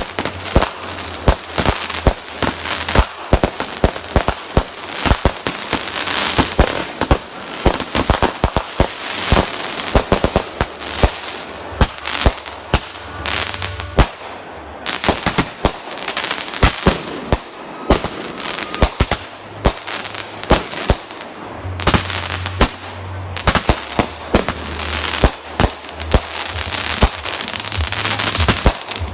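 Fireworks going off: a rapid, continuous series of sharp bangs and crackling, many shots a second.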